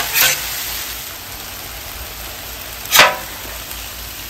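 Ribeye steak sizzling steadily on a Blackstone flat-top griddle. About three seconds in comes a short, sharp scrape of a metal spatula on the steel top as the steak is turned, with a smaller scrape at the start.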